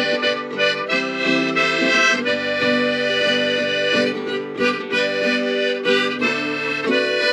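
Harmonica played in a neck rack together with a strummed acoustic guitar: sustained harmonica chords and melody over a steady strumming rhythm.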